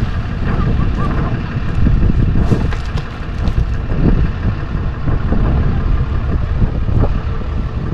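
Fish-stocking truck's engine running with a steady low rumble.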